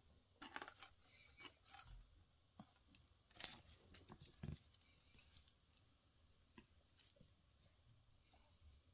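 Faint clicks and scrapes of wooden chopsticks tearing into a fried egg and touching a plastic food container. The loudest comes about three and a half seconds in.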